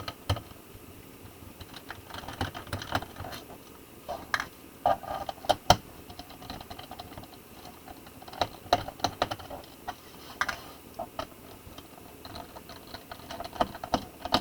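Irregular small clicks and taps of a screwdriver and screws against the plastic bottom case of a Lenovo IdeaPad 320 laptop as its case screws are backed out, coming in scattered clusters.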